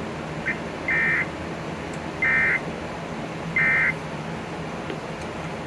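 Three short bursts of Emergency Alert System SAME header data tones, each about a third of a second long and about 1.3 s apart, over a steady background hiss. It is the digital header that opens an EAS alert, here a severe thunderstorm warning.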